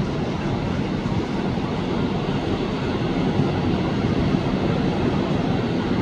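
Small ocean waves breaking and washing up over wet sand: a steady rush of surf with no distinct pauses.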